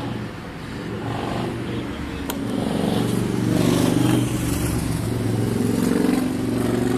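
A motor engine running close by, growing louder about three seconds in and staying loud, with a sharp click about two seconds in.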